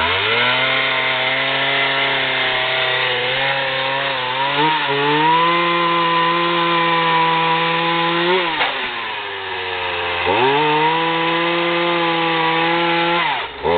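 Poulan 18-inch two-stroke chainsaw revved to full throttle and cutting through the tree trunk, its pitch sagging a little under load. About nine seconds in it drops to idle, then revs back up and cuts again before easing off near the end.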